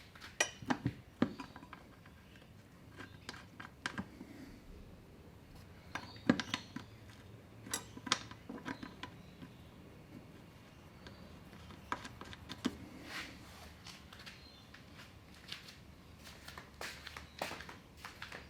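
Hand tools clicking and clinking against metal in short, irregular bursts, with the sharpest knocks about six and eight seconds in.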